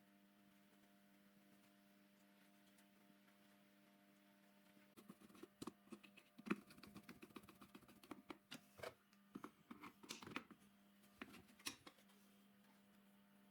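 Faint steady hum, with a run of light clicks and knocks for several seconds in the middle.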